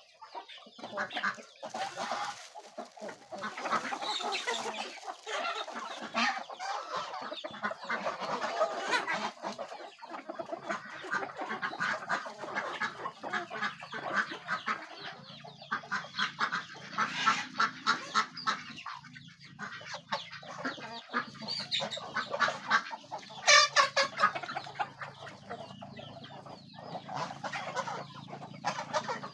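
Chickens clucking in a mixed farmyard flock of chickens, ducks and geese, the calls thick and overlapping throughout, with the loudest bursts about two thirds in.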